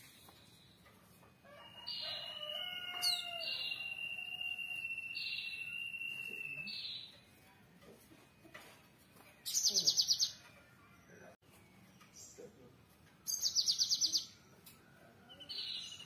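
Cinereous tit (gelatik batu, 'gelatik wingko') calling: a long high whistled note with short higher notes repeated over it for about five seconds, then two short bursts of very fast, high chattering trills about four seconds apart.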